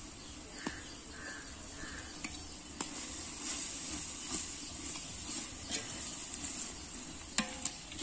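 Onions, green chillies and herbs sizzling in oil in a large metal pot as ginger-garlic paste is added and stirred in with a metal ladle, with occasional clicks of the ladle against the pot.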